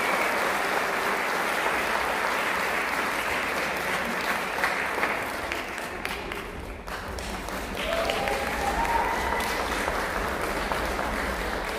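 Theatre audience applauding, steady and dense, easing a little around six seconds in and then picking up again.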